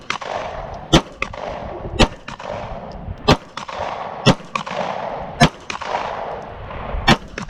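Gun firing single shots, about one a second, six in all, each shot followed by a short echo.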